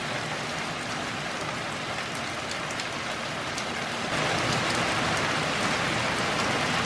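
Steady rain falling and splashing on wet asphalt, getting louder about four seconds in.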